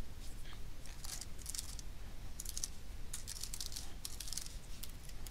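Typing on a computer keyboard: short, light key clicks in small irregular bursts over a faint steady low hum.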